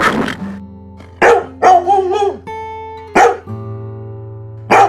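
A dog barking about four times in short, separate barks, with guitar music playing underneath.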